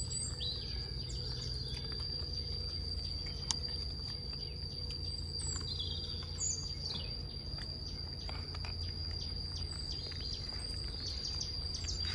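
Garden background: birds chirping now and then over a steady high-pitched insect whine and a low rumble, with a few faint clicks.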